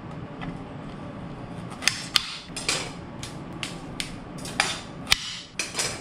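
Sharp, irregular knocks and clicks on a glass cutting board as broccoli and onion are cut with a knife and broken apart by hand. There are about nine strikes, starting around two seconds in, and a few of them are loud.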